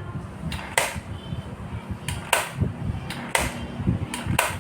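Sharp taps or knocks, about six, some in quick pairs, over a low rumbling background.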